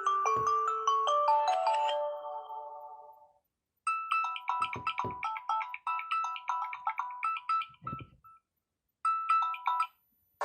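Samsung Galaxy A30s ringtones played one after another: a melody fades out over the first few seconds, then after a short pause a quick, chiming melody plays, stops, and starts again near the end.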